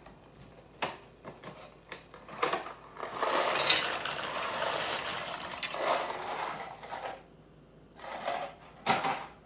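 Kitchen clatter: a few sharp knocks and clicks, with a hiss lasting about four seconds in the middle.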